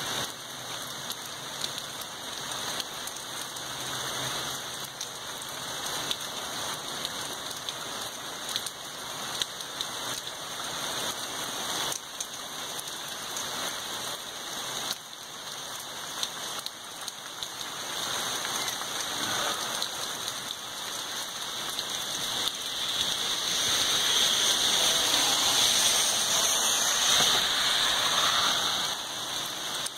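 Steady heavy rain falling, growing louder about two-thirds of the way through and easing slightly near the end.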